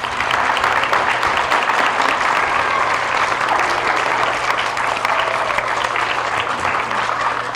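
Audience of young children and adults clapping steadily for an award winner, starting right after the name is announced.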